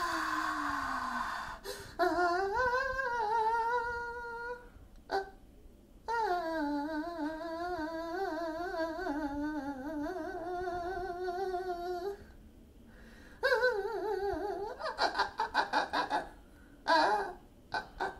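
A voice humming long, wavering wordless phrases, three drawn-out stretches with short pauses between, followed near the end by a run of short quick bursts like laughter.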